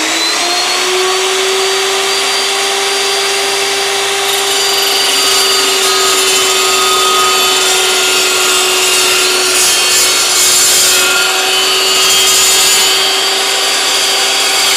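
Evolution S380CPS 15-inch dry-cut metal chop saw running at full speed with a steady whine, its carbide-tipped blade cutting through 1.5-inch, 1/8-inch-wall mild steel angle iron. The grating cutting noise grows in the second half as the blade works through the steel.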